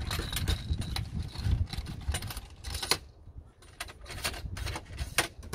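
Irregular clicks and light metallic rattles of hands handling parts and tools, over a low rumble, with a short lull about three seconds in.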